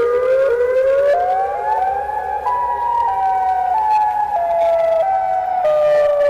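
Outdoor tornado warning siren wailing. Its pitch climbs over the first two and a half seconds, then slowly falls in small jumps.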